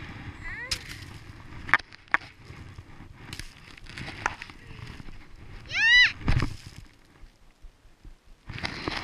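A skier lying in deep snow: rustling of clothing and scattered sharp knocks of skis and poles, then a short, high-pitched vocal squeal about six seconds in, followed at once by a heavy low thump.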